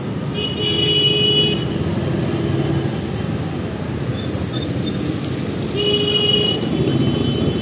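Busy two-wheeler and car traffic at a city junction, a constant rumble of motorbike and scooter engines. A vehicle horn honks for about a second near the start and again, more briefly, about six seconds in.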